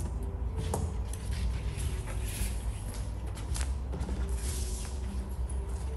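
Steady low room hum with scattered light knocks and rustles of handling and movement.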